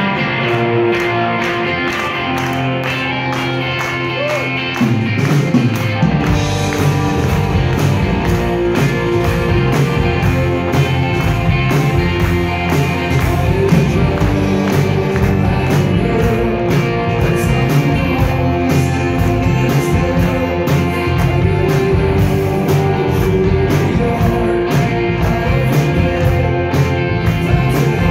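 Live rock band playing: electric guitars and drums, with the full band coming in louder about five seconds in, and a man singing lead over it.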